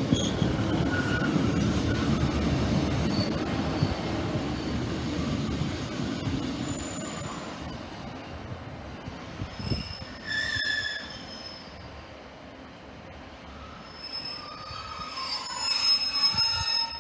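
Passenger train pulling into the platform and slowing: a loud low rumble that fades away over the first several seconds. High squeals from the wheels or brakes come out briefly around the middle and again near the end.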